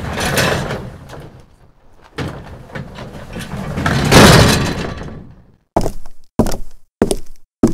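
Noisy crashing and banging that swells to a loud peak about four seconds in and dies away. From about six seconds in it gives way to heavy thuds, evenly spaced at a little under two a second.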